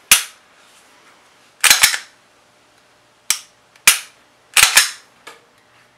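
Glock 17 pistol being function-checked after reassembly: the slide racked and the trigger dry-fired, giving a series of sharp metallic clacks and clicks, some in quick pairs or triples.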